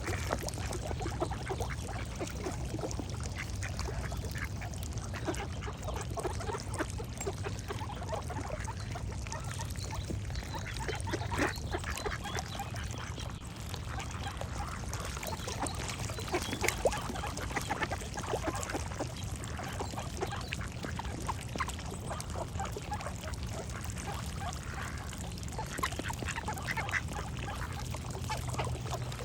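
Ducks quacking over and over, with other birds singing in the background.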